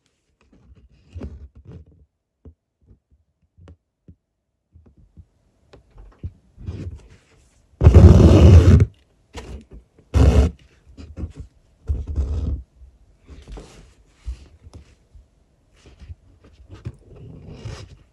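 Hand-embroidery handling sounds: a needle pushed through cloth and thread drawn through and rubbed against the fabric, in soft scattered rustles. A loud rustle lasting about a second comes about 8 s in, and a shorter loud one about two seconds later.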